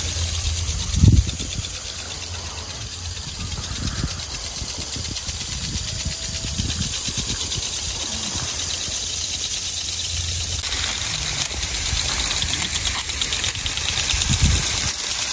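Orchard irrigation sprinklers hissing steadily as they spray, over a low rumble, with a short thump about a second in and another near the end.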